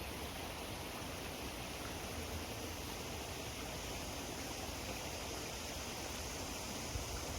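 Steady rushing outdoor noise with a low, uneven rumble underneath.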